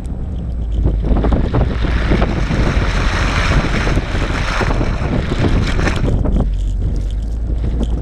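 Car driving through deep snow: a steady low rumble under a rushing noise full of small crackles, which swells through the middle and eases off about six seconds in.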